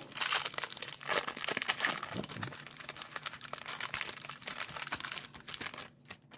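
A hockey card pack's wrapper being torn open and crinkled by hand, a dense crackling that fades out near the end.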